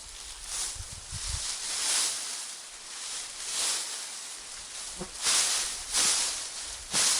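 Rustling and crunching noises that swell and fade irregularly, every second or two, with a few sharp clicks.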